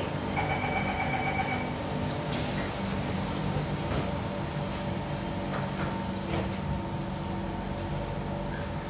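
Siemens C651 metro car at a station with its doors closing: a short steady warning tone, then a sudden burst of hiss about two seconds in as the sliding doors move, with a few light knocks as they shut. A steady hum from the car's equipment runs underneath.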